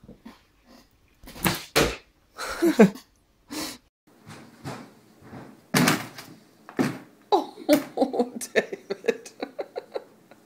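Several thumps and knocks, loudest about two seconds in, then a sharp bang about six seconds in as a pet runs into a glass door, followed by a person laughing in quick bursts that trail off near the end.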